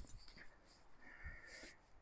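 Near silence, with one faint, brief sound about one and a half seconds in.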